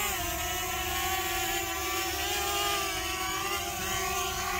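Contixo F-30 quadcopter's propellers whining steadily, the pitch wavering a little as it hovers low and comes down to land.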